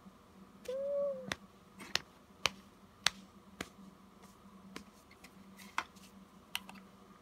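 A baby's brief, soft hum about a second in, then a run of about eight sharp, irregular clicks and taps from the baby handling a hard toy.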